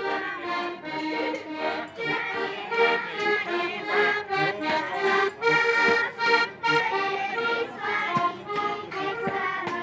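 Accordions playing a traditional folk tune together, with held chords and a steady beat.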